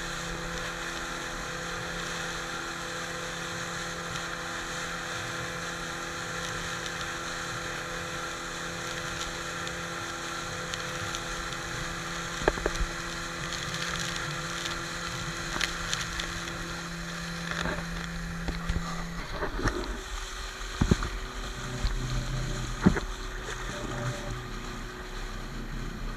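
Boat's outboard motor running at a steady pitch. About 19 seconds in, its note changes and drops away, and several sharp knocks come in the second half.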